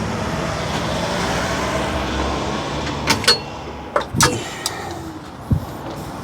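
A motor vehicle running close by, a steady engine and road noise, with a few sharp clicks and knocks in the second half.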